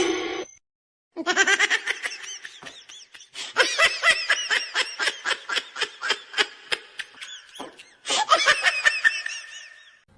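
Rapid, high-pitched laughter in quick repeated bursts, starting about a second in, with a short break near the end before it resumes and fades.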